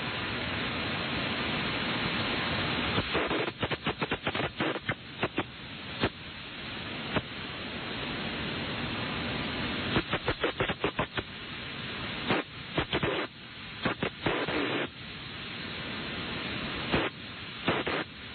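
Radio static hiss from a receiver with no signal coming through. It is steady for the first few seconds, then repeatedly stutters, cutting in and out in quick flickers several times.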